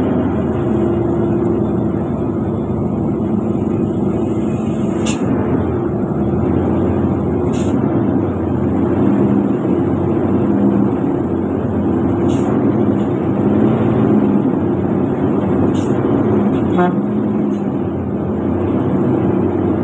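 A vehicle's engine running, with tyre noise on a wet road, heard from inside the cabin. The engine note wavers slightly, and a short high click sounds every few seconds.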